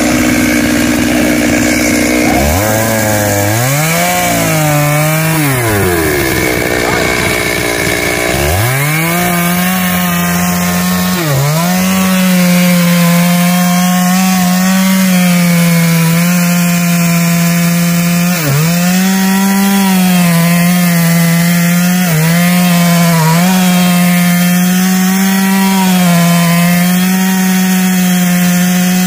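Stihl two-stroke chainsaw cutting into a Trembesi (rain tree) trunk. The engine revs up and down a couple of times, then holds at full throttle through the cut, its pitch dipping briefly every few seconds as it bogs under load.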